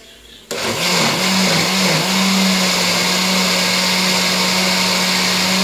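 Moulinex electric mixer-grinder switched on about half a second in, its motor running and blending boiled, peeled tomatoes in a stainless-steel jar. The motor's pitch wavers for the first second or so as the load settles, then holds steady.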